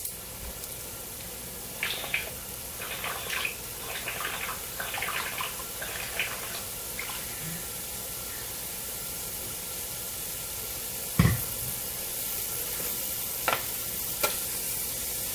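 Diced onions starting to sizzle in heating olive oil in a stainless steel pot, a steady quiet hiss. Short handling noises come in the first half, one knock about eleven seconds in, and two lighter clicks near the end.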